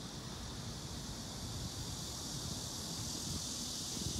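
Outdoor ambience with wind rumbling irregularly on the microphone and a steady high hiss that grows slightly louder near the end.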